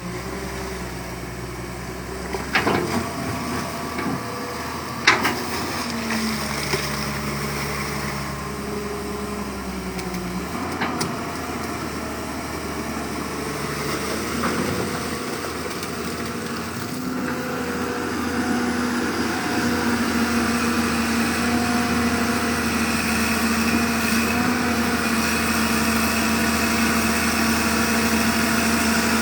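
Diesel engine of a Hyundai Robex 210-7 pontoon excavator running steadily, with two sharp metallic clanks about two and a half and five seconds in. The engine note changes about ten seconds in, then rises and grows louder through the second half as the machine works harder.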